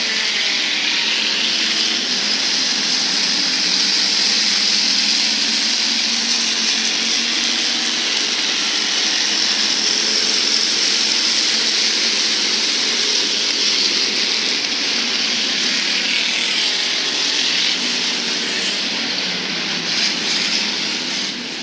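Hobby Stock race cars running laps on a dirt oval, their engines held at high revs in a loud, steady drone as the pack goes around.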